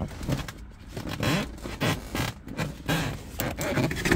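Hands working a wiring harness and plastic clips into place under a car seat: a run of irregular scraping and rustling strokes.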